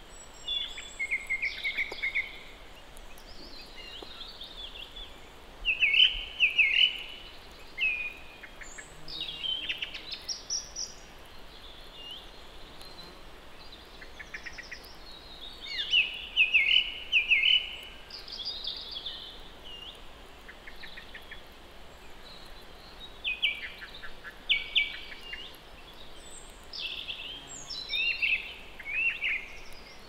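Songbirds singing: short, quick chirping phrases every few seconds over a steady background hiss.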